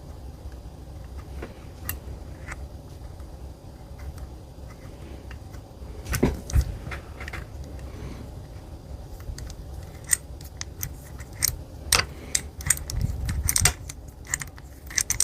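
Small metal air rifle parts and hand tools clicking and clinking as they are handled and threaded back together. There are a few scattered clicks at first, and they grow busier in the second half.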